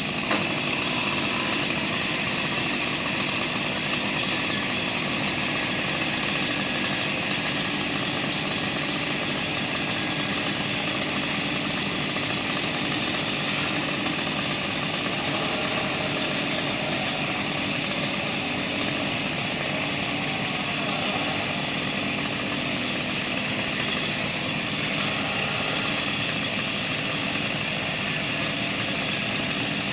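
Small engine idling steadily after a chainsaw cut.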